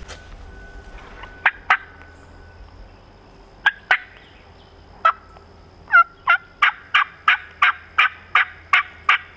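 Hen turkey yelps from a hunter's turkey call, made to call in a gobbler: two quick pairs of notes, a single note, then a steady run of about ten yelps at about three a second.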